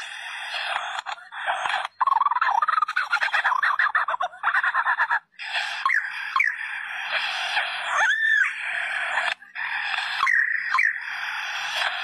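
Superb lyrebird singing a dense, rapid string of chattering and whistled mimicked calls, broken by brief pauses, with a few clear rising-and-falling whistles in the second half.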